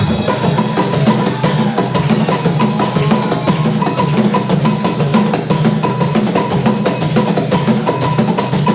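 Music driven by drums and hand percussion in a busy, even rhythm, with a short bell- or wood-block-like tap repeating over a steady bass line.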